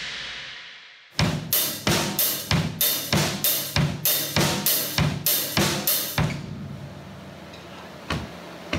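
Drum kit played in a dance-beat groove on bass drum, snare and hi-hat, with the bass drum doubled. Even strokes come about three a second, starting about a second in after a fading swish and stopping about five seconds later.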